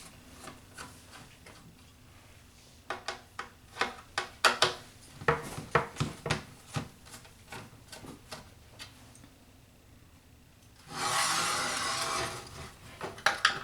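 Hand tools working screws out of a subwoofer's panel: scattered clicks and scrapes of a screwdriver on metal screws. Near the end comes a louder steady rasping noise lasting about a second and a half.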